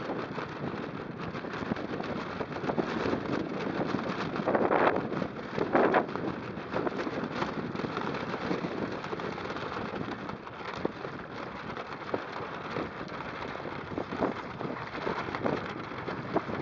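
Spray spattering on the camera and wind rushing as a sailing kayak drives through choppy water in heavy wind, with louder splashes about five seconds in.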